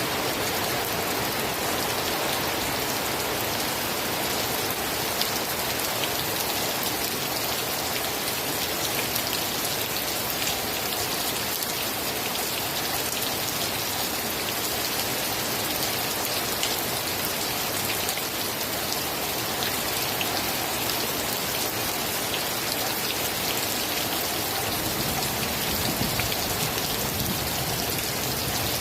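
Steady rain falling on a surface, an even hiss with scattered drop ticks throughout.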